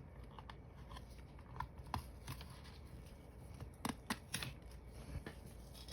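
Faint handling sounds as a small plastic scale-model car body is lifted off its magnet-mounted RC chassis: scattered soft clicks and rustles, with a few sharper clicks about four seconds in.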